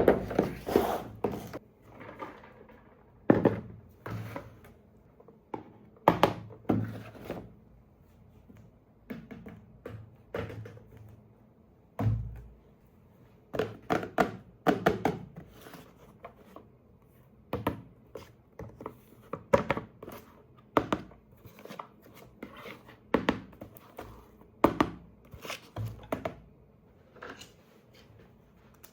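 Irregular thunks, taps and clicks of hands handling a toy and its packaging at close range, with a little crinkling.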